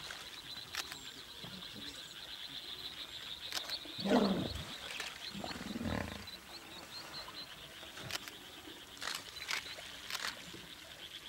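Two deep, loud animal calls, the first about four seconds in and falling in pitch, the second a second and a half later, over a steady, fast-pulsing high trill and a few sharp clicks.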